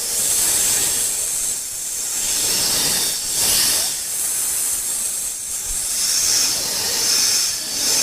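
Cobra hissing: a loud, continuous hiss that swells and eases several times.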